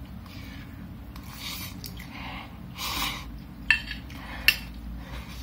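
A metal fork clinking against a glass food container while noodles are eaten, with two sharp clinks close together near the end and softer eating sounds before them.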